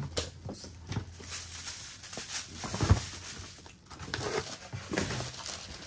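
Tissue paper and packaging rustling and crinkling as boxes are unwrapped by hand, in irregular bursts, with a single knock about three seconds in.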